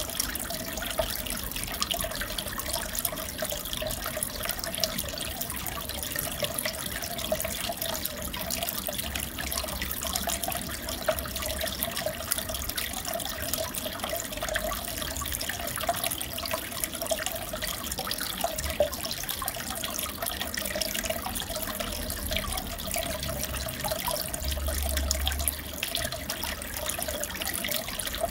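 Aquarium water trickling and bubbling steadily, with many small crackles and drips.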